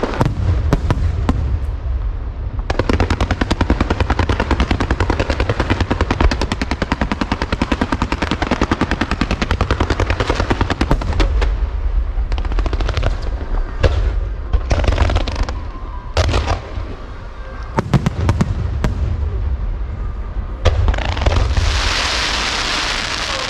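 Aerial fireworks display: a long, rapid barrage of sharp bangs with deep booms underneath, then scattered single bangs. Near the end comes a loud hissing crackle.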